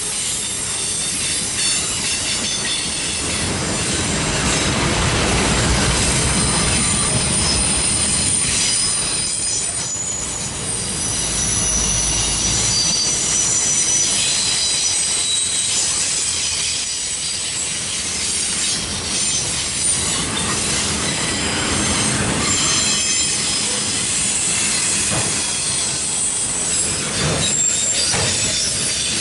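Loaded autorack cars of a CSX freight train rolling past, a steady rumble of steel wheels on rail with some clacking over the joints. Thin, high-pitched wheel squeals come and go throughout.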